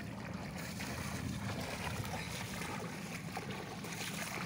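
River water splashing and sloshing as people swim and thrash an arm, over a steady low rumble of wind on the microphone.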